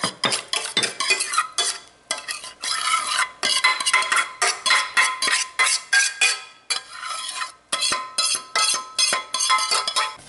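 Metal spoon scraping against the inside of a stainless steel saucepan in many quick, repeated strokes, scooping thick creamy filling out into a ceramic casserole dish.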